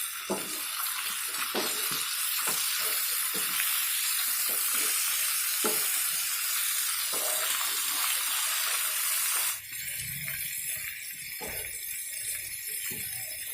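Rohu fish pieces shallow-frying in oil on a hot tawa: a steady sizzle with occasional pops, dropping somewhat in level about nine and a half seconds in.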